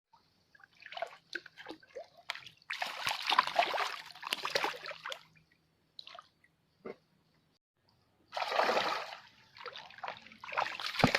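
Water splashing and sloshing in several irregular bursts, with a few short knocks between them.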